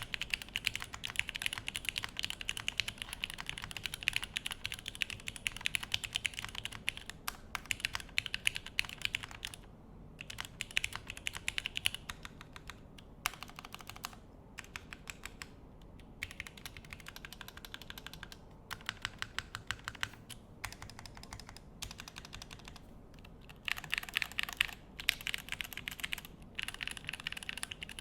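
Typing test on a Crin FRL mechanical keyboard: a rapid, continuous stream of keystrokes clacking, with a few short pauses.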